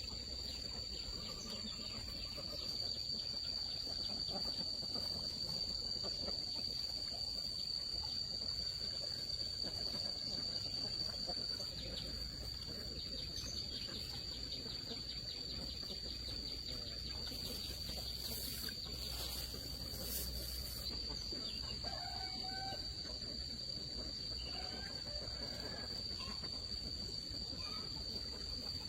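Outdoor rural ambience: a steady, high-pitched insect drone with occasional faint bird calls.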